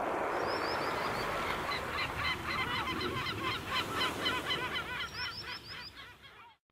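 A flock of birds calling over a steady rushing noise: many short honking calls, several a second, with a few high falling whistles near the start and again about five seconds in. It all fades away near the end.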